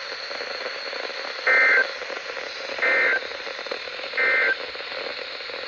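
Three short Emergency Alert System digital data bursts, the SAME end-of-message code, each about a third of a second long and spaced about 1.4 s apart, over steady radio hiss. They mark the end of the alert broadcast.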